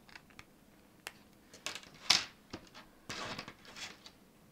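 Small 3D-printed plastic parts being snapped and twisted off a printed kit card by hand: a few sharp plastic clicks, the loudest about two seconds in, then brief rustling of the plastic frame being handled.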